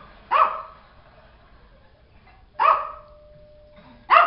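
A small dog barking at the television: three single sharp barks, one just after the start, one in the middle and one near the end, with quiet gaps between.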